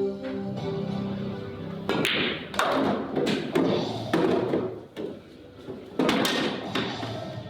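Background music, with sharp clicks of billiard balls being struck about two seconds in and again about six seconds in.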